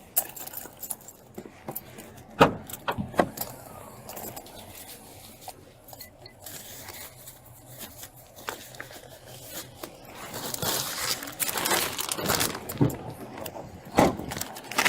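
Handling noise picked up by a body-worn camera: scattered clicks, knocks and jangling of an officer's gear, then steady rustling of fabric or a bag from about ten seconds in.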